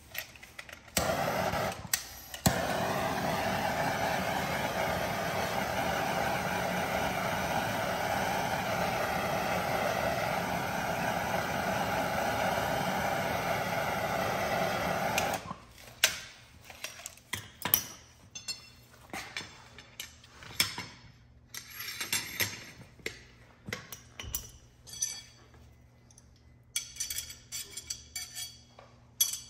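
Handheld gas torch burning with a steady hiss of flame for about fourteen seconds, heating a shock absorber's aluminium top cap to break down green thread locker. It starts about a second in with a couple of sharp clicks and cuts off suddenly, followed by scattered clinks and knocks of metal tools and parts on a concrete floor.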